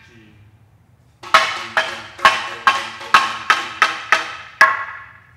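A long hand-held percussion bar struck with a small mallet, part of a set of custom-made instruments for a percussion trio. It plays a loose, uneven run of about ten pitched, ringing strokes starting about a second in, roughly three a second, the last one sharper, each fading quickly.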